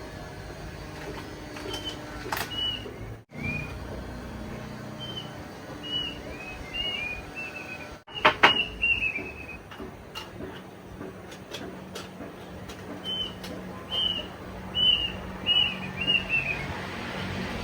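A bird calling in short, arched, high chirps that come in quick runs of two to four, over a steady outdoor background. A few sharp clicks or knocks sound among them, the loudest about eight seconds in, and the sound cuts out for a moment twice.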